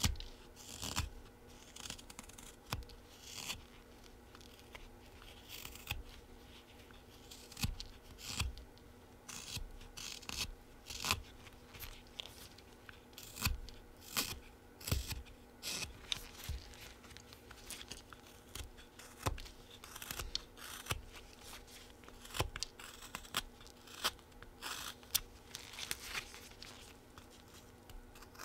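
A Flexcut Whittlin' Jack folding knife slicing shavings off a small wooden bee blank, one short cut after another at an uneven pace, roughly one or two a second.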